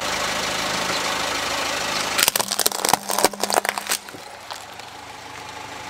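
Small plastic toy truck cracking and snapping as a car tyre rolls over and crushes it: a dense run of sharp cracks starting about two seconds in and lasting nearly two seconds. A car engine hums steadily underneath.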